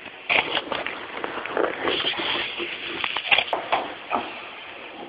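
Clear plastic wrapping on a loudspeaker crinkling and rustling as the speaker is handled and pulled out of its box, with irregular crackles and a couple of sharper knocks.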